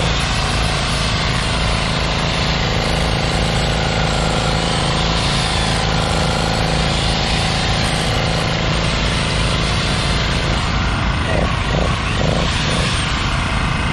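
INGCO electric rotary hammer drill hammering steadily into hard, stony ground. A small Firman four-stroke portable generator runs alongside it under the drill's load without straining.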